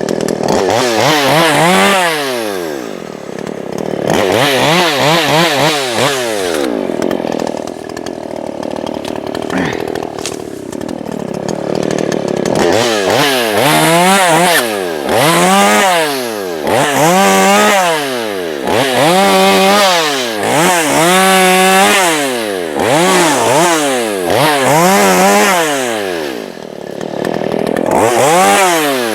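Small two-stroke gas chainsaw revved up and let fall back over and over, its pitch sweeping up and down every second or two. Partway through it holds a lower, wavering pitch for several seconds.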